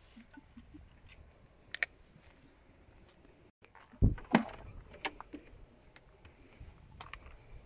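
Ligier X-Too's door handle pulled and its latch releasing: two sharp clicks about four seconds in, then a few lighter clicks as the door swings open.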